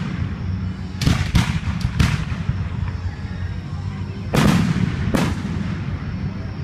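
Aerial fireworks shells bursting overhead: a quick run of four booms between one and two seconds in, then two more at about four and a half and five seconds, each trailing off in a rolling echo.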